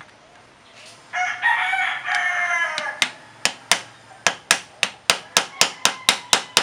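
A rooster crows once, about two seconds long, starting about a second in. Then a hammer taps steadily on a screwdriver held against a scooter's CVT clutch assembly, a sharp metal click about three to four times a second.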